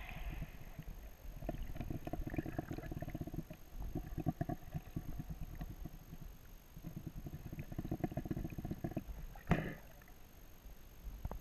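Muffled underwater sound picked up by a camera in a waterproof housing: bursts of rapid, low crackling from water moving around the housing, and one sharp knock about nine and a half seconds in.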